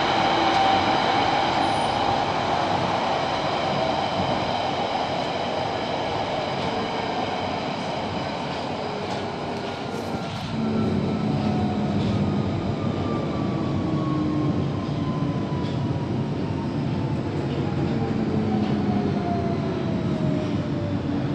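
London Underground Central Line 1992 Stock train heard from inside the carriage as it runs between stations: a steady rumble of wheels on rail with high steady tones over it. In the second half a motor whine falls slowly in pitch as the train slows for the next station.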